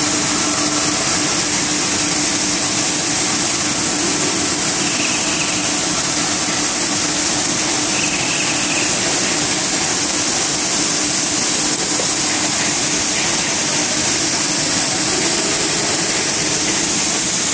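Plastic film pelletizing line running: loud, steady machine noise, an even hiss with a constant low hum underneath.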